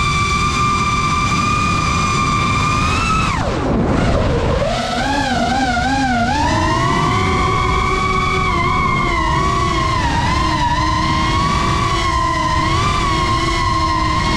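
FPV racing quadcopter's brushless motors whining at high speed, the pitch steady at first, dropping sharply about three and a half seconds in, then climbing back and wavering up and down as the throttle changes. A steady rush of air runs underneath.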